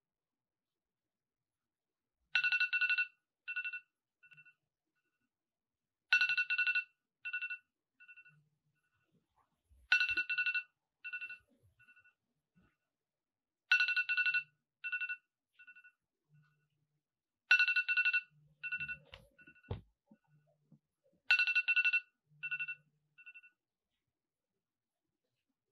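Smartphone alarm tone on the nightstand: a short bright chime with fading echoes, repeating six times about every four seconds.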